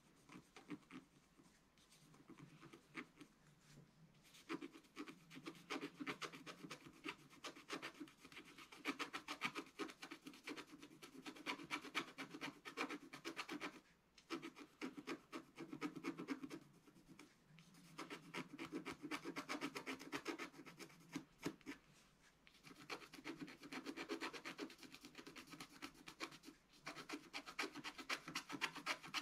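Wooden stylus scratching the black coating off a scratch-art sheet in quick, dense back-and-forth strokes, filling in an area. It is faint for the first few seconds, then steadier, with a few short pauses.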